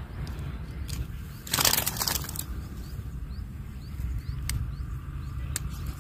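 Wind rumbling on the microphone, broken about one and a half seconds in by a loud, short burst of splashing and rustling at the shallow, grassy water's edge as a hooked snakehead is landed. A few sharp clicks follow later.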